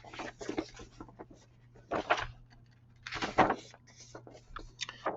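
Paper rustling in a few short bursts as the pages of a plastic model kit's instruction booklet are handled and turned, over a faint steady low hum.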